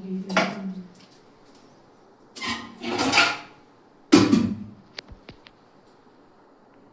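Kitchen utensils and containers being handled: three short scraping, sliding sounds, the last starting with a sharp knock, then a few light clicks.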